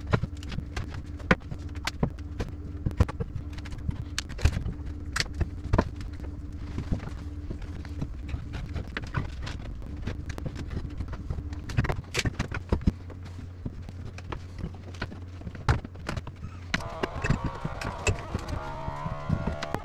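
Irregular knocks, taps and clicks of hand work at a bathroom vanity as wooden trim notched around the sink is worked loose and the under-sink plumbing is handled. A steady low hum runs underneath and drops away about twelve seconds in.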